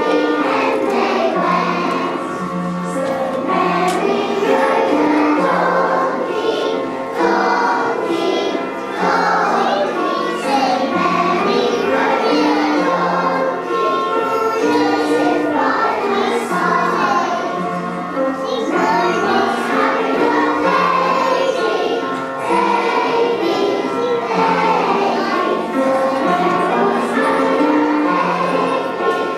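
A choir of young children singing a song together, with instrumental accompaniment.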